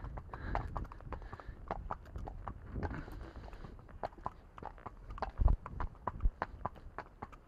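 Hooves of two horses clip-clopping on a tarmac lane, several uneven strikes a second. A louder low thump comes a little over two thirds of the way in, with a smaller one soon after.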